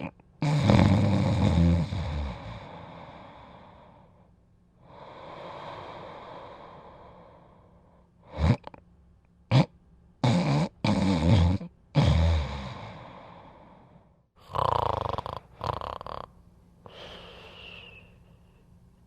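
Snoring: a long, loud rasping snore at the start, a softer drawn-out breath, then a run of short sharp snorts, and a high whistling breath near the end.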